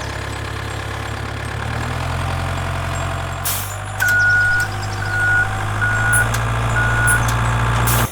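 Steady vehicle engine running, its pitch shifting once about two seconds in. Four evenly spaced high reversing beeps sound over it from about halfway through, and the whole sound cuts off abruptly at the end.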